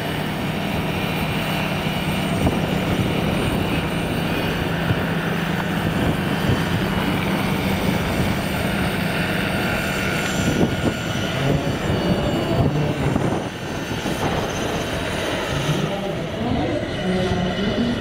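Vario Schweizer 300C scale model helicopter with an electric Kontronik motor in flight: a steady drone from its rotors and motor under a haze of wind noise. The drone wavers in pitch near the end.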